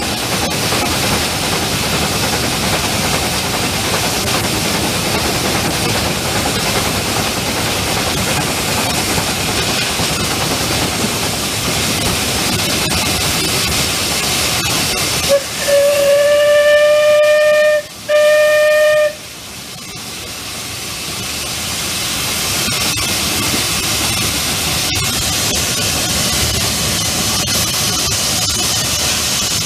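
The 1898 'Sarthe' steam locomotive running with a steady hiss of steam and running noise. About halfway through its steam whistle blows twice: a long blast, then a short one.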